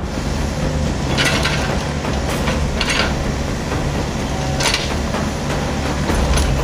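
Mini excavator's diesel engine running steadily. Three short harsh noises come over it about one, three and five seconds in.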